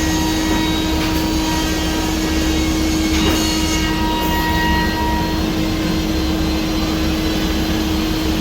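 Biesse Rover A five-axis CNC router running, its spindle machining wood with a steady hum and one held tone over a noisy rush. A brief sharp tick about three seconds in.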